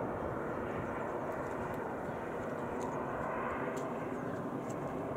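Steady rushing noise of jet aircraft at a distance, the Frecce Tricolori's Aermacchi MB-339 jets, swelling slightly in the middle.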